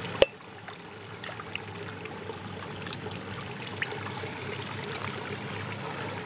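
Shallow canal water trickling and dribbling, with faint small splashes and ticks. There is one sharp knock shortly after the start.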